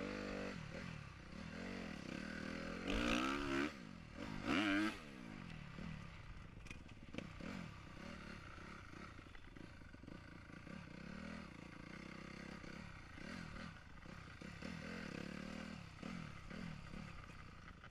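Dirt bike engine revving up and down as it rides, pitch rising and falling through the gears, with two loud hard rev bursts about three and four and a half seconds in.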